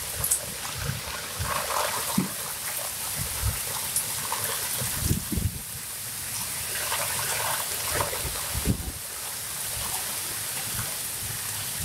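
Rain falling steadily, a constant hiss, with gusting wind that makes short low thumps on the microphone now and then.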